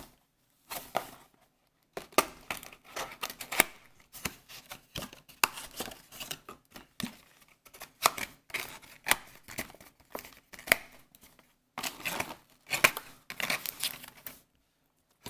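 Cardboard trading-card booster box being opened by hand: its lid flaps are pulled open and a card is slid out. It makes irregular scraping, rustling and clicking of card and paper, with a few brief pauses.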